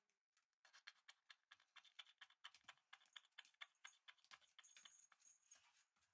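A puppy's claws and paws patter and click rapidly on a hard floor as it scampers and pounces, starting about half a second in.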